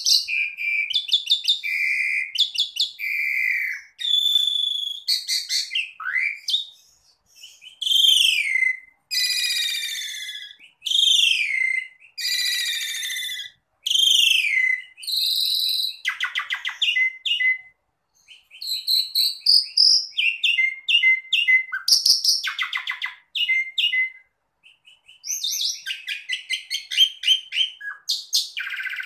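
Asian pied starling (jalak suren) singing a long, varied song: whistled notes and slurred falling phrases, then from about halfway rapid chattering trills of clicks, with short pauses between phrases.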